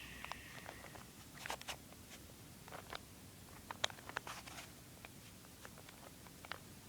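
Plastic Rubik's Cube being turned by hand: faint, irregular clicks and rasps of its layers twisting, in small clusters with short pauses between.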